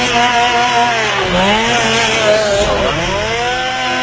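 Chainsaw engine revving at high speed, its pitch dropping and rising again twice as the throttle is eased and opened.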